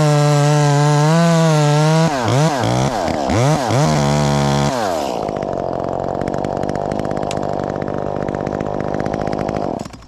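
Chainsaw running at high revs in a cut through dead white oak. About two seconds in, the revs swing up and down, then the saw drops to idle about halfway through and stops near the end.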